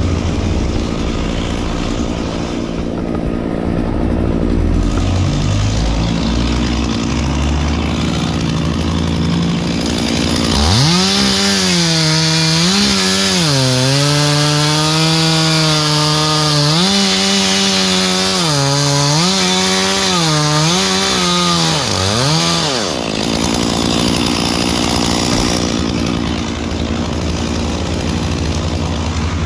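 Stihl chainsaw opening up about ten seconds in and cutting wood for some twelve seconds, its pitch dipping and recovering several times as the chain loads in the cut, then dropping back off. A low engine rumble runs before and after it.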